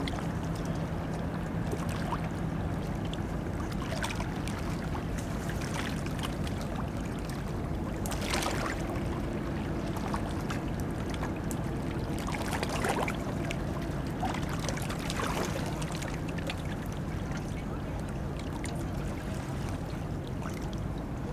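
A harbour tug's diesel engine running with a steady low hum across the water, while small waves lap and splash against the quay.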